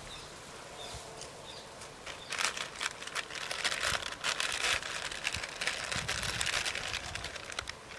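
A Lay's potato chip packet crinkling and crackling as a hand rummages in it for chips, the rustling busiest in the middle.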